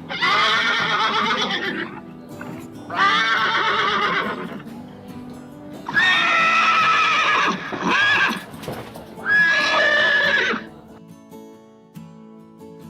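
A horse neighing four times in a row, each whinny lasting one and a half to two seconds with a wavering, shaking pitch, the last two with a high, held start. Background music runs underneath and carries on alone after the fourth neigh.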